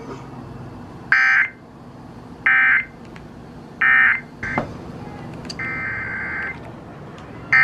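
Emergency Alert System SAME digital data tones over the broadcast: three short, loud bursts of buzzing warble about a second and a half apart, then two longer bursts near the end. The tones come between two alerts, closing the evacuation warning and opening the next message, a mandatory evacuation order.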